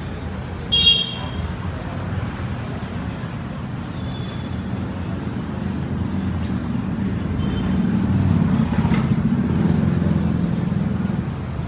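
Motorcycle engine running with a steady low rumble that grows louder over the last few seconds, just after its clutch plates were replaced. There is a short high-pitched ring about a second in.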